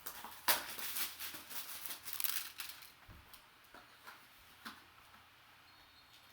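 Card-break box and packaging being opened by hand: a few seconds of crinkling and tearing, then a few light clicks and taps as the contents are handled.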